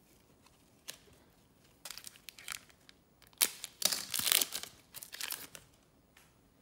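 A trading-card pack wrapper being crinkled and torn open by hand, in bursts of crackling. The loudest tearing comes about three and a half to four and a half seconds in.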